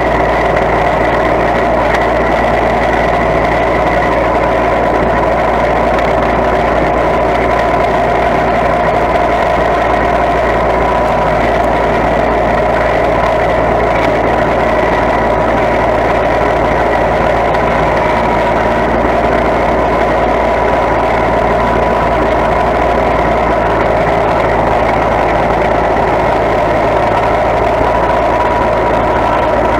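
Small riding garden tractor's engine running steadily at an even speed as the tractor drives along, heard up close from on board.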